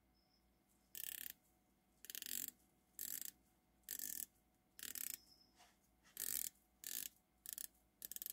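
Ratcheting clicks of the Zelos Swordfish 40mm dive watch's bezel being turned by hand, in about nine short quick runs of clicks roughly a second apart.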